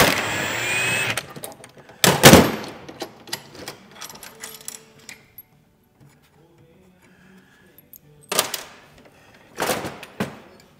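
Impact wrench driving a bolt through a socket to set a 3/8 stainless rivnut: a whirring run at the start, a loud short burst about two seconds in, light metal clicks, then two more short bursts near the end.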